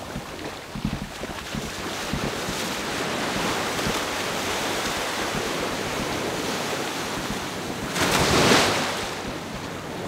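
Ocean surf washing onto a beach, with wind buffeting the microphone. A few low knocks come in the first two seconds, and a louder rush of breaking water comes about eight seconds in.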